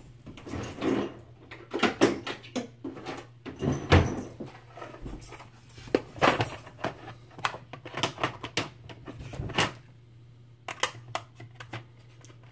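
Irregular clicks, clinks and knocks of someone rummaging among Allen keys and other small tools, with the loudest knock about four seconds in, over a steady low hum.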